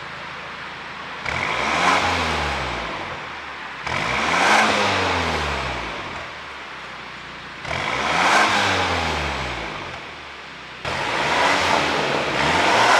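BMW 420i's turbocharged four-cylinder engine, on an ECU tune made for exhaust pops, being free-revved from idle four times. Each blip climbs quickly and then falls back toward idle, and the last one near the end is choppier.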